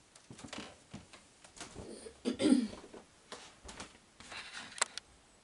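Irregular rustling and handling noises with a few sharp clicks, the loudest a short low-pitched sound about two and a half seconds in.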